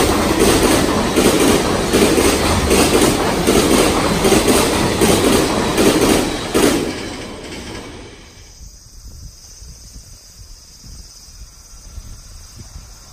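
Container freight train passing at speed, its wheels clattering over the rail joints in a fast, regular rhythm. The clatter stops as the last wagon goes by, about seven seconds in, and fades quickly to a faint low rumble.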